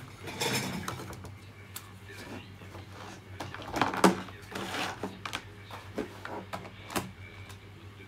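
Hands handling the wiring and plastic parts inside an opened Miele vacuum cleaner: rustles and scattered sharp clicks, loudest about four seconds in, over a steady low hum.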